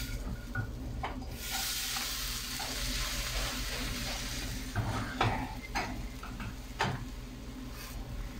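Egg whites with mushrooms and onion sizzling in a frying pan while a plastic spatula scrapes and knocks against the pan, turning the omelette over. The sizzle strengthens about a second in, and a few sharp scrapes come about five to seven seconds in.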